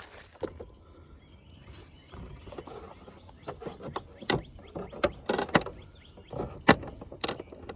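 Scattered sharp clicks and knocks of hard plastic, from hands working at a truck side mirror's glass and its clips to get it apart. The loudest clicks come in the second half.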